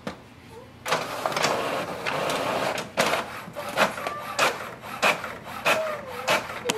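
HP OfficeJet Pro 9130e inkjet printer running a print job. About a second in it starts with a steady rasp lasting about two seconds. This is followed by a run of clicks and strokes about every half second, with short motor whines between them.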